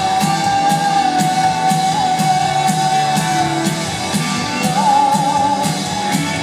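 Indie rock band playing live with singing. A long high note is held through the first half and then comes back wavering, over a steady beat of drum strokes about twice a second.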